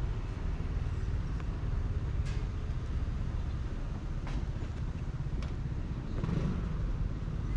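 Outdoor street ambience: a steady low rumble with a few faint clicks.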